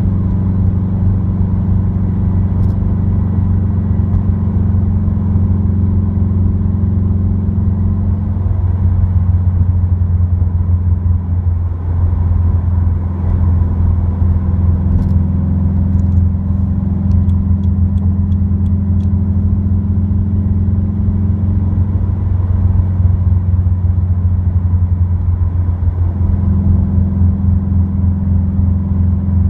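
Subaru WRX's turbocharged flat-four with an Invidia N1 dual cat-back exhaust, a steady low drone heard inside the cabin at cruise, with the pitch shifting slightly a few times.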